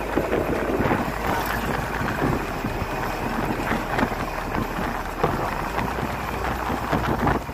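Inside a moving bus: a steady rumble of engine and road noise, with wind buffeting the phone's microphone and many small knocks and rattles from the bus.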